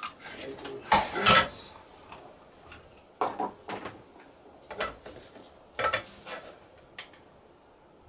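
Knocks and clatter of things handled on a wooden table: a plastic pot set on a digital scale and a cloth bird bag put into it for weighing. Several separate sharp knocks at uneven intervals, the loudest about a second in.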